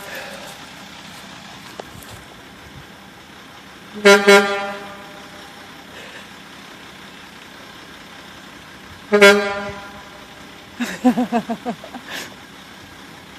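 Tractor-trailer horn beeping in two short blasts, about 4 and 9 seconds in. Near the end comes a quick run of short pitched sounds.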